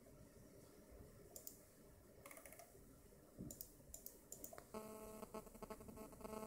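Faint computer mouse clicks, a few in quick little clusters, over quiet room tone. Near the end a faint buzzing hum with several steady tones starts.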